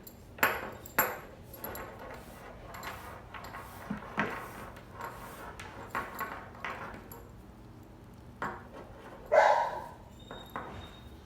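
Metal leash clasp clinking and leather strap rubbing as the leash is handled and fed back through the clasp fitting, a string of short clicks and knocks. About nine and a half seconds in, a dog barks once.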